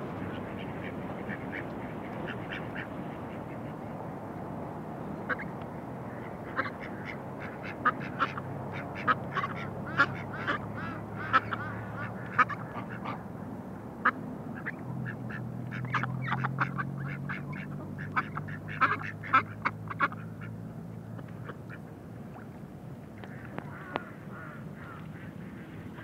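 White domestic ducks quacking: many short, loud quacks in quick runs, thickest between about five and twenty seconds in, then thinning out.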